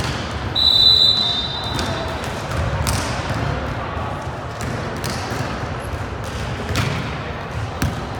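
Referee's whistle blown once in a single held note of about a second and a half, over a steady hall din of voices, with a few sharp thuds of ball or feet on the court.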